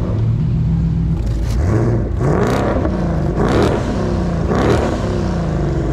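A car engine idling with a deep steady note, then revved three times, each rev rising in pitch and falling back, about a second apart.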